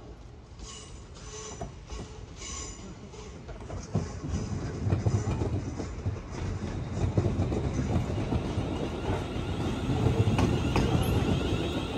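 A train passing, its rumble building from about four seconds in, with wheels clattering over rail joints.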